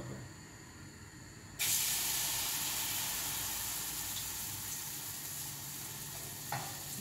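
Potato pancake batter going into hot oil in a frying pan: a sudden loud sizzle starts about a second and a half in and slowly eases off.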